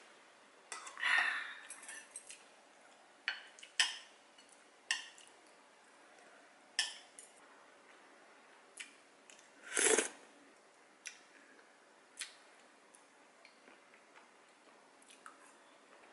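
Metal spoon clinking and scraping against a ceramic bowl of nurungji (scorched-rice porridge) while eating: scattered light clicks, with a few longer scrapes, the loudest about ten seconds in.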